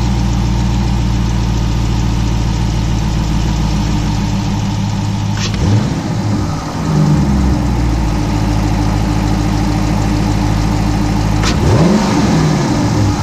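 Dodge Challenger R/T's 5.7-litre HEMI V8 idling through a newly fitted Hellcat airbox, blipped twice about six seconds apart. Each blip rises and falls in pitch over about a second and a half before settling back to idle.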